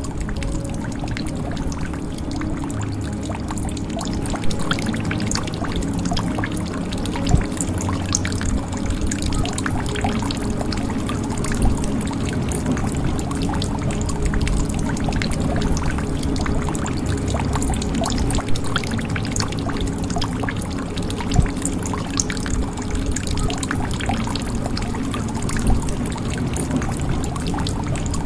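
Water pouring and trickling into a jug in a steady stream, with many small drips and a louder single drop every few seconds.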